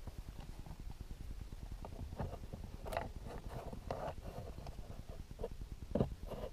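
A rubber slot mat being pressed into the plastic door pocket of a Ford Focus RS Mk3: a run of light taps and clicks of rubber and hand against the hard trim, with another sharp tap near the end.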